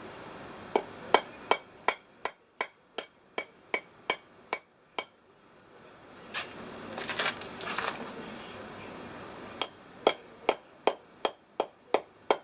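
Hammer tapping new bushings into a 1969 Camaro door hinge: light, quick metallic strikes about three a second with a ringing ping. A pause of a few seconds with some handling noise follows, then another run of taps near the end.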